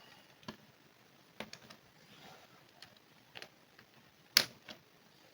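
Plastic screen bezel of an HP 15 laptop being pried with a plastic tool: a few scattered light clicks and taps, with one sharper click a little past four seconds in. The bezel is stuck down with strong adhesive and is not budging.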